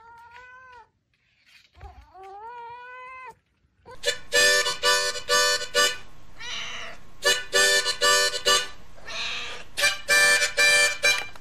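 A cat meows twice, long calls rising in pitch. Then a harmonica plays loud, short, repeated chords.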